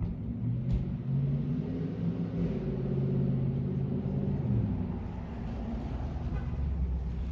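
Aircraft flying past overhead: a steady engine rumble with droning tones, whose pitch drops about four and a half seconds in as it passes.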